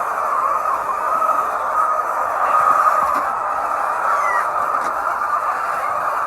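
Steady din of a large flock of hens in a poultry house, with one short, higher call standing out about four seconds in.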